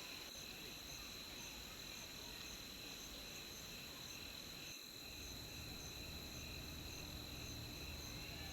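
Insects chirring: a steady high-pitched trill with a softer chirp repeating about every half second. About halfway through, a low rumble joins underneath.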